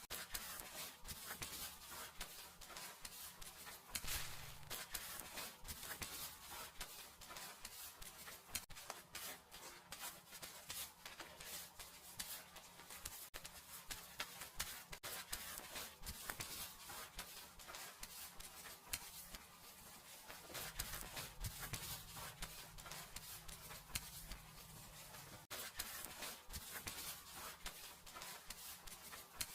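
Fingers scrubbing and rubbing through hair on the scalp during a seated dry hair wash: a steady, close crackling rustle made of many small irregular scratches.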